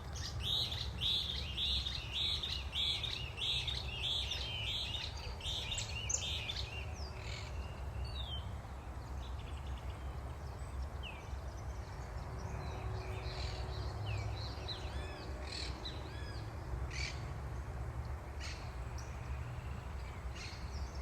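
Birds calling outdoors: a run of repeated high notes, about two a second, for the first seven seconds, then scattered chirps and short whistles. A steady low rumble runs underneath.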